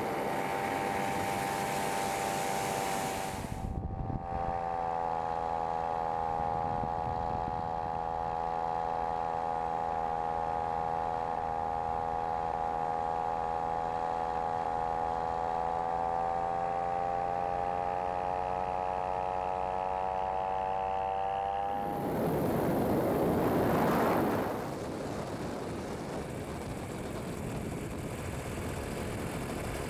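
Dragonfly microlight trike's engine and propeller running at a steady pitch in flight, heard through on-board cameras, with wind noise. A loud rushing sound swells for a couple of seconds about two-thirds of the way through.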